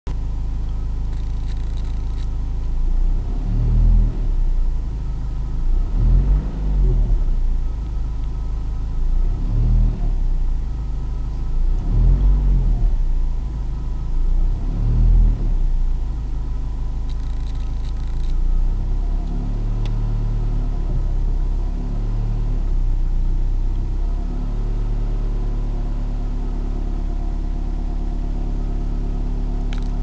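Renault Laguna II 1.9 dCi four-cylinder turbodiesel, heard from inside the cabin, running with a low rumble and revved gently up and back down about five times, then a few smaller times before settling steady near the end. The revs sweep it through the 1000–1300 rpm band where, with the coolant at about 90 °C, a low-pitched sound appears that the owner cannot place.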